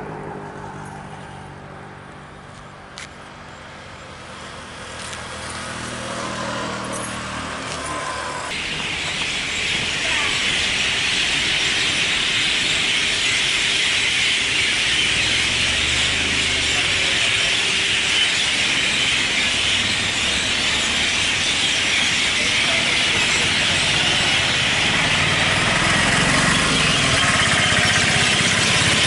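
Dense, continuous screeching chorus of parrots and other birds gathering to roost in a tree. It sets in about eight seconds in and grows steadily louder, with motor vehicles passing underneath.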